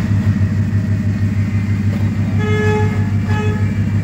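VW Vento four-cylinder engine idling with a misfire caused by a faulty ignition coil. A horn toots twice, about two and a half seconds in and briefly again just after.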